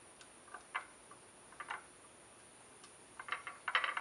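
Small metal clicks and taps of a screwdriver and jet covers against a Weber 40 DCOE carburettor body as the jet covers are fitted and tightened down: a few scattered ticks, then a quicker run of clicks near the end.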